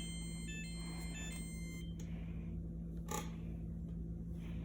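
Whirlpool dishwasher's drain pump running with a steady low hum, the machine stuck draining itself under an F8/E4 overfill error that the owner thinks may be a broken float sensor. A short electronic chime of tones stepping in pitch plays in the first two seconds, and there is a single click about three seconds in.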